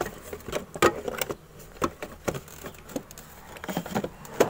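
Scattered clicks and knocks of hard parts being handled as a horn speaker is fitted into the front of a scooter, with the sharpest knocks about a second in and just before the end.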